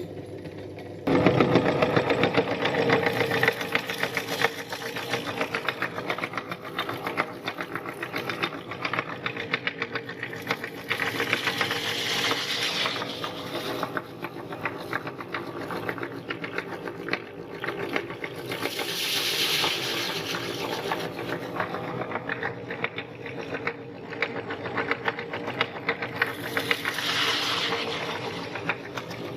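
Meat grinder running with a steady motor hum under a dense, fast crunching rattle as it grinds puffed rice. It starts up about a second in and is loudest just after starting, with three short swells of hissing crunch spread through the run.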